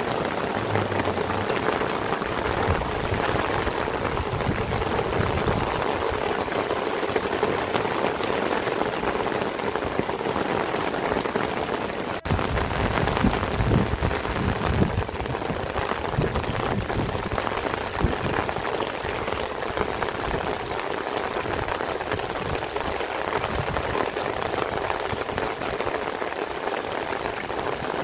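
Heavy rain falling steadily, with a momentary break in the sound about twelve seconds in.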